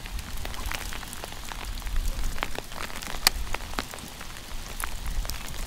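Hail and rain falling around a small plastic jon boat: a steady hiss with many scattered sharp ticks of hailstones striking at irregular moments, over a low rumble.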